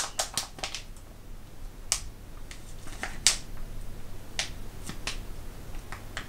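Sealed plastic gummy-candy bag crackling as it is handled and turned over, in sharp, irregular crinkles, the loudest about three seconds in.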